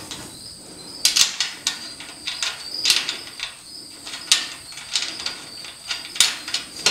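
Steel garage door track hanging bracket and perforated angle strap clinking and rattling as a 3/8-inch bolt is worked through them by hand: a string of irregular sharp metal clinks.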